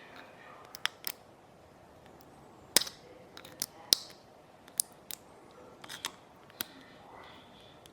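Irregular small, sharp clicks and taps of repair tools on the casing and parts of a 6th-generation iPod nano being opened. There are about a dozen, the loudest a little under three and four seconds in.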